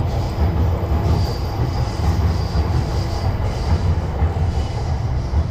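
Continuous low rumble of a passing train, with a faint high wheel squeal that comes and goes.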